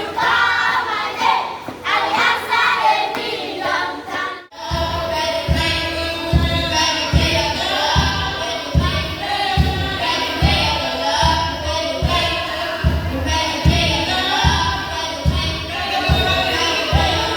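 Group singing. About four and a half seconds in, it cuts abruptly to a choir singing with a band over a steady kick-drum beat, a little more than one beat a second.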